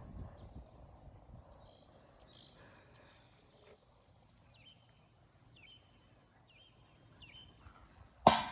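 Outdoor ambience with birds chirping: a series of short repeated chirps and a buzzy trill. A single sharp, loud knock near the end.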